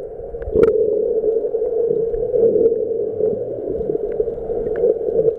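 Muffled underwater ambience: a steady hum with a few sharp clicks and taps, the loudest about half a second in.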